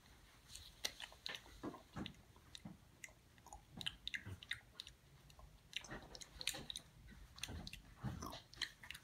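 Small plastic toys being handled and knocked together: a faint, irregular run of light clicks and taps.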